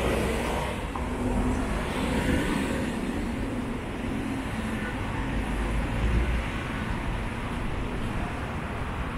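Road traffic running past on a wet road: a steady rumble of cars and a bus.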